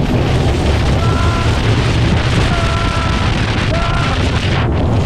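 Turbo-diesel longtail boat engine running hard at high speed, a loud, steady, deep rumble, with wind buffeting the microphone.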